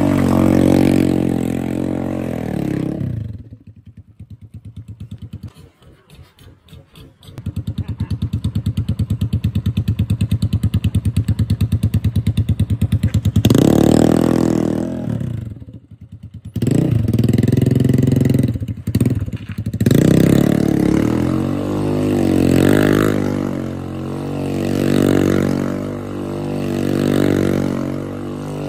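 A 250Z motorcycle engine revving hard with the bike held in place for a burnout on its worn rear tyre. It drops to a pulsing idle a few seconds in, then is held at high revs, and in the second half it rises and falls over and over.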